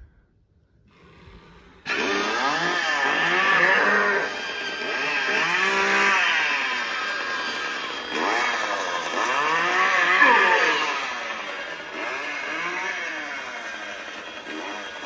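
Leatherface animatronic's chainsaw sound effect, starting abruptly about two seconds in and revving up and down over and over, loud.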